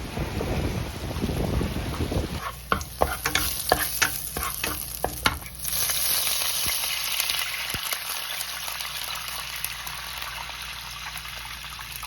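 Wind rumbling on the microphone at first, then a run of sharp clicks and knocks. From about six seconds in, food sizzles steadily as it fries in a hot pan.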